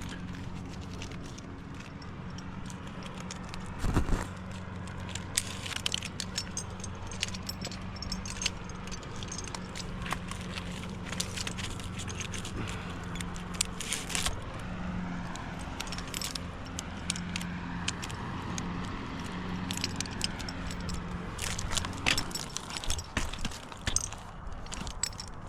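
An engine running steadily at low speed, with scattered metallic clicks and jingling over it and one louder knock about four seconds in.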